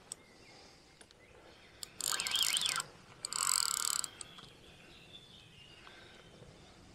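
Fishing reel's drag buzzing in two bursts of just under a second each, about two seconds in, as a hooked mirror carp pulls line off the reel.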